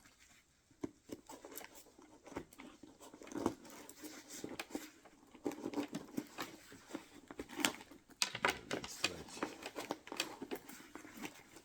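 Hand tools being handled and slotted into the pockets of a fabric tool bag: irregular clicks, light knocks and rustling, busier in the second half.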